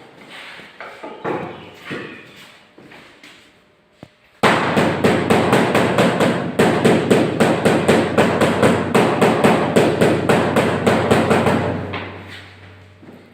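Hammer strikes on marble floor tiles as they are laid: scattered light knocks, then about four seconds in a fast, steady run of sharp blows, about four a second, over a low hum, fading near the end.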